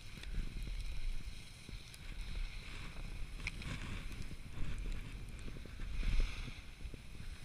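Skis sliding and carving on packed snow: a hiss that swells a couple of times as the skier turns, over a low rumble of wind buffeting the microphone.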